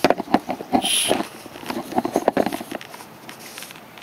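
Clicks and knocks of a carburetor power valve and small tools being handled on a workbench, with a brief high squeak about a second in.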